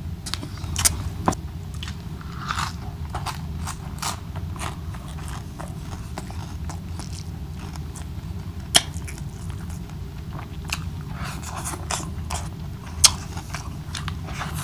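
Close-miked eating: a man chewing and smacking mouthfuls of rice and crisp fried boneless milkfish (daing na bangus) eaten by hand, with many wet mouth clicks. A few sharper clicks stand out, about a second in, near the middle and near the end.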